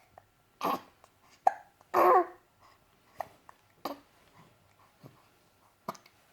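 Two-month-old baby hiccupping: about half a dozen short, sharp hics at irregular intervals, with one slightly longer vocal sound about two seconds in.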